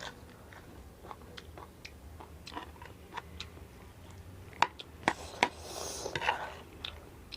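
Close-up chewing of chatpate, a wet, spicy puffed-rice snack: scattered soft crunches and mouth clicks, with a few sharper clicks a little past the middle.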